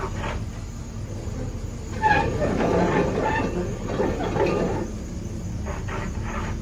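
Excavator working, with a steady rumble and repeated short metallic squeals and clanks that grow louder about two seconds in.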